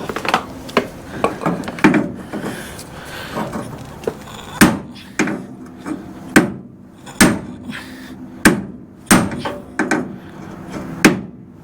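Hammer striking the steel frame rail of a 1966 Ford Ranchero: about a dozen hard blows at uneven intervals, each ringing briefly, knocking a bend and ripple out of the curb-damaged frame.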